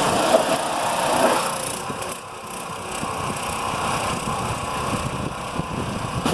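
Pressure washer running and spraying mud off the underside of a pickup truck. The sound eases a little about two seconds in, then runs on steadily.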